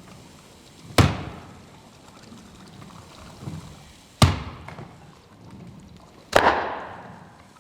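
Three loud, sudden impacts, the first about a second in and the others roughly three and two seconds later. Each dies away over about half a second to a second, the last one longest.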